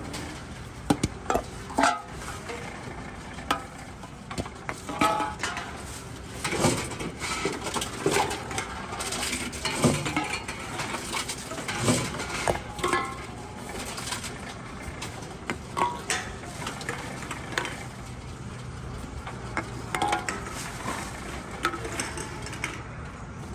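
Aluminium drink cans clinking and clattering as they are put into a Tomra T-90 reverse vending machine's intake and ride its conveyor, with irregular sharp knocks throughout.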